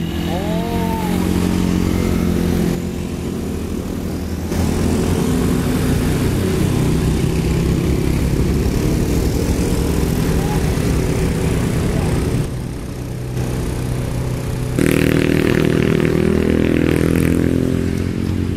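Diesel engine of a Fuso self-loader truck running under load as it hauls an excavator uphill, with a motorcycle passing. The truck engine gets louder about fifteen seconds in as it draws close.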